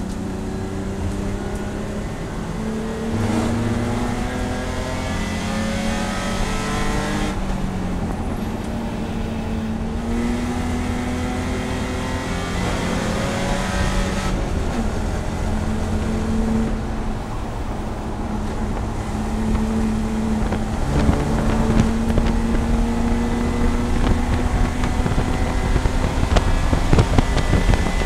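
BMW E30 race car's six-cylinder engine heard from inside the cockpit, pulling hard under full acceleration. Its pitch climbs and drops back several times as it is shifted up through the gears, over wind and road noise.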